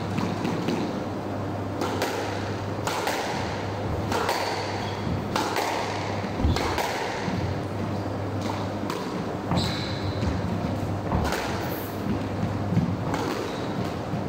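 Squash ball being struck with a racket and rebounding off the court walls: sharp, echoing smacks about once a second, over a steady low hum.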